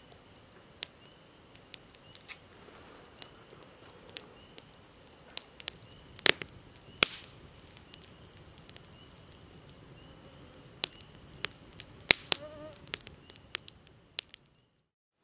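Wood campfire crackling, with sharp irregular pops and snaps, a few of them loud. A faint high chirp repeats about once a second behind it. The sound fades out near the end.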